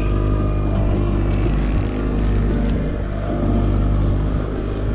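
Boat motor running steadily, a low drone with an even engine hum, with two short hissy noises about a second and a half and two seconds in.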